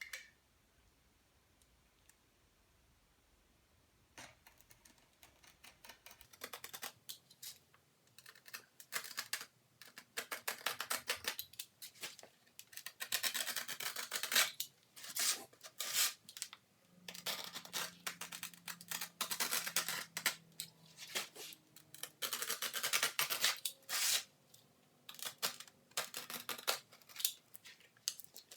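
Self-adhesive sandpaper being trimmed around the edge of a sanding disc: about four seconds in, irregular runs of short scraping cuts begin and carry on.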